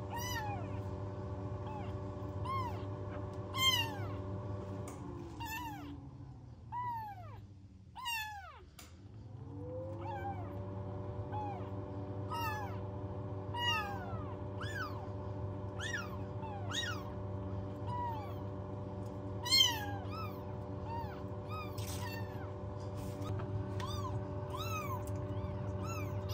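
Young kittens mewing over and over in short, high, falling cries, two of them loud, about four seconds in and near two-thirds of the way through. Under them runs a steady machine hum that sinks in pitch and fades about a third of the way in, then rises back.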